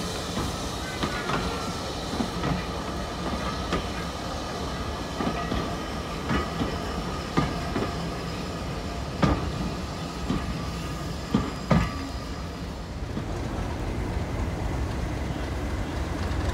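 Railway coaches rolling slowly past, their wheels clicking irregularly over rail joints over a steady low rumble, with a faint wheel squeal. The loudest clicks come about nine and twelve seconds in.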